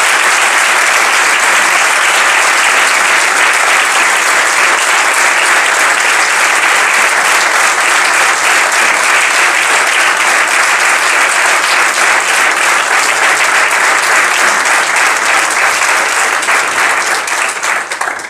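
An audience applauding, loud and sustained, dying away near the end.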